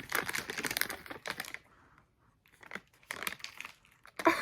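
Crinkling and tearing of food packaging being opened by hand, in crackly bursts with a short pause in the middle.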